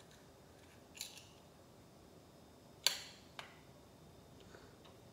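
A knife scraping on a plate about a second in, then clicking sharply against it and once more lightly as tofu is cut.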